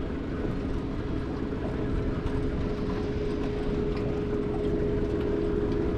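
Boat motor running steadily: a low rumble with a constant mid-pitched hum that comes in just after the start and holds.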